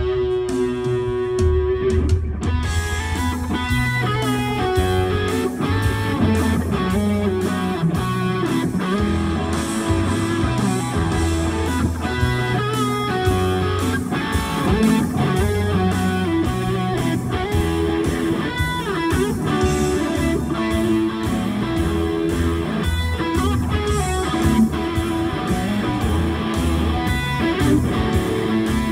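Live amplified electric guitar playing a lead melody in a rock instrumental, over a steady bass line and beat. It opens on a long held note that changes about two seconds in.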